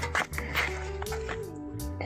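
Background music with a steady low bass and sustained notes, one of which steps down in pitch about three-quarters of the way through.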